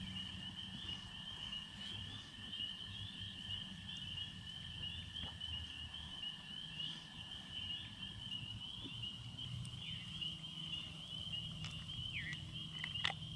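A dense chorus of frogs calling, a steady high pulsing trill that runs without a break. A lower, long steady trill sounds alongside it for the first two-thirds.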